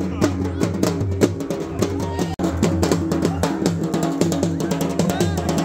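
Live wedding band music: a large double-headed drum beaten with a stick in rapid, steady strokes, with a sustained melody playing over it.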